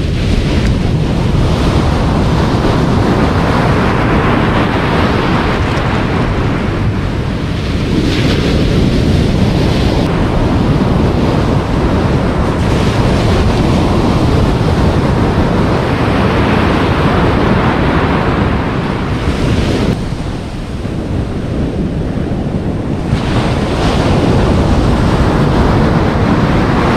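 Surf breaking and washing up a beach, swelling and easing every few seconds, with wind buffeting the microphone.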